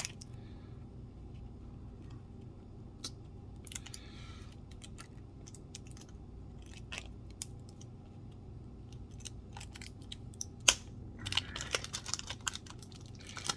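Cardboard trading card box and its packaging being handled and opened by hand: scattered clicks and taps with a brief rustle about four seconds in, one sharper snap about two-thirds of the way through, and a quick run of clicks near the end.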